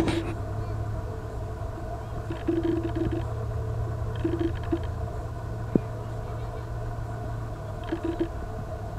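A few brief, distant shouts from players on a soccer field over a steady low hum, with a single sharp thud about halfway through.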